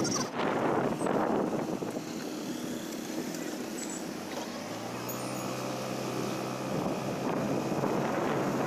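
Wind rushing over the microphone on a moving motor scooter, with road and engine noise underneath. A low engine hum comes up for about two seconds around the middle.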